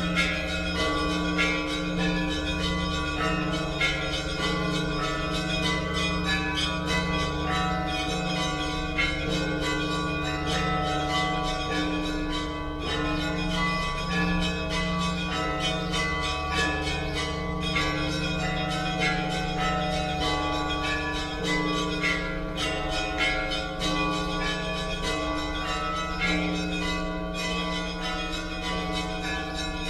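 Church bells ringing a continuous peal: several bells of different pitches struck again and again, their tones overlapping and ringing on.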